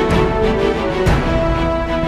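Background music with sustained chords and a steady beat, the chord changing about once a second.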